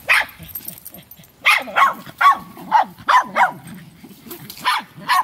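Small dogs barking in a play fight: one sharp bark at the start, then a quick run of short yappy barks about a second and a half in, and two more near the end.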